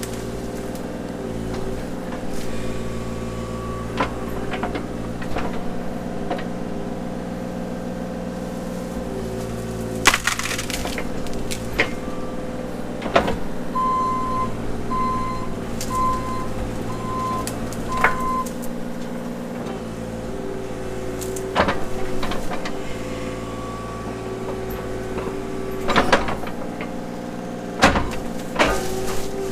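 Bobcat E32 mini excavator's diesel engine running steadily while it digs, with several sharp cracks as roots and wood break. A beeper sounds five times, about once a second, around the middle.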